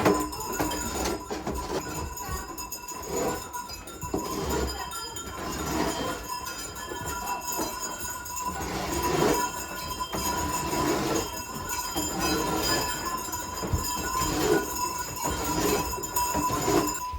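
Sheep bells ringing among a flock, several metal bells sounding at once in a steady, layered jingle with irregular pulses as the animals move.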